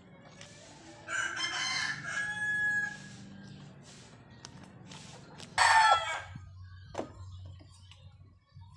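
Rooster crowing: a long crow starting about a second in and lasting about two seconds, then a louder, shorter call a little past halfway.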